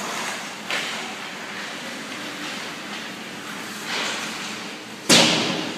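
Ice hockey game in play: a steady hiss of skates on the ice, broken by sharp knocks of stick and puck about a second in and again near the end. The last knock is the loudest and rings on briefly, like a puck hitting the boards.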